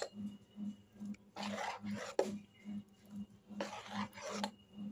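A metal spoon stirring thick rice-flour batter in an aluminium bowl, scraping against the metal in two long strokes, with a sharp click partway through.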